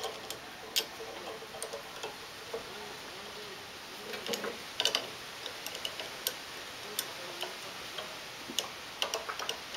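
A 3/8-inch drive socket ratchet clicking in short, irregular runs as a nut is tightened down.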